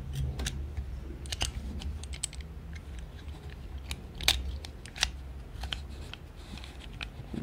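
Small metallic clicks and scrapes of a .22 Auto Nine pocket pistol's slide being worked back by hand over its recoil spring and guide during reassembly. Two sharper clicks come about four and five seconds in.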